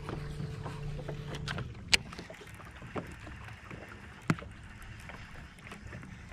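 Water and light wind around a bass boat on a lake, with a low steady hum that stops about a second and a half in. Two sharp clicks stand out, one about two seconds in and a louder one a little after four seconds.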